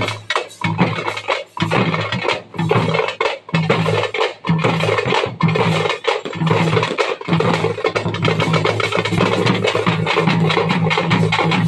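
A thappu (parai) drum troupe playing: many frame drums struck together in a loud, continuous beat with a larger drum among them. The playing breaks off briefly a few times in the first half, then runs unbroken.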